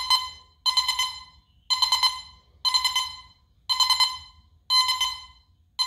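Teknetics Omega 8500 metal detector sounding its target tone about once a second, one short ringing beep for each sweep of the coil over four dimes set less than a coil width apart. This is a recovery-speed test at a normal swing speed.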